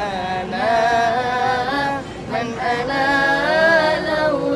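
A group of two women and two men singing a sholawat (Islamic devotional song) together unaccompanied. The voices hold long, wavering notes, with a short break about two seconds in.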